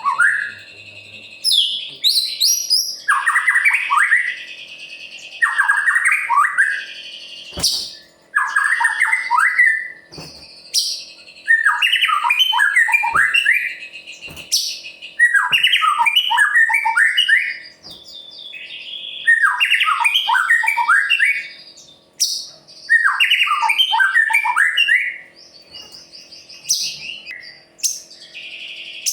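White-rumped shama (murai batu) in full song: loud phrases of quick falling notes every few seconds, alternating with a high, harsh rasping trill.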